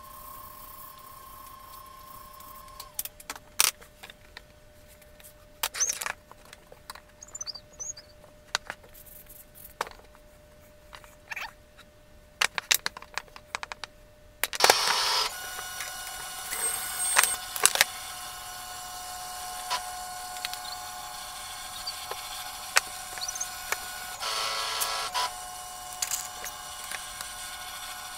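Plywood model parts clicking and knocking as they are handled and fitted together on a workbench. About halfway through, a steady machine hum with a few held tones starts up and runs on under the clicks.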